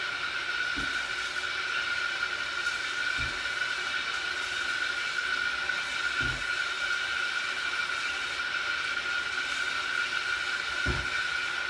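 Tap water running steadily into a stainless steel kitchen sink while potatoes are washed under it, with four dull knocks from the sink.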